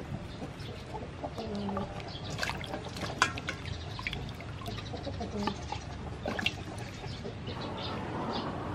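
Water splashing and sloshing in a stainless steel bowl as hands wash green onions, limes and chilies, with small knocks against the bowl. A few short clucking calls from chickens sound about a second and a half in and again past the middle.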